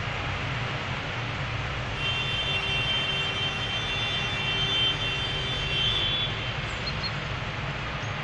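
Farm tractors driving past on a road, their engines running with a steady low rumble. A high, steady whine rides on top for about four seconds in the middle.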